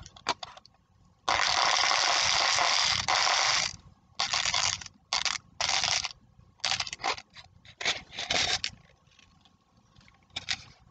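Handling noise: scraping and rustling close to the microphone in a series of bursts, the longest lasting about two and a half seconds.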